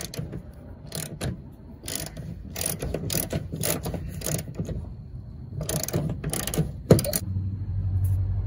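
Socket ratchet on a long extension clicking in uneven strokes as it tightens a 15 mm bolt through a fuel tank strap. A sharp click comes about seven seconds in, then a steady low hum.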